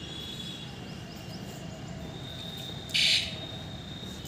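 One short, loud electronic beep about three seconds in, from a battery horn mounted on a children's bicycle handlebar, over a steady thin high whine.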